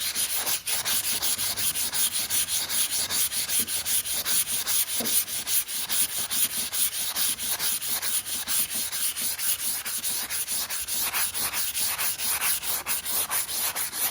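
220-grit sandpaper rubbed by hand over chalk-painted wood in quick back-and-forth strokes, several a second, a steady scratchy rasp as it smooths and distresses the dried chalk paint.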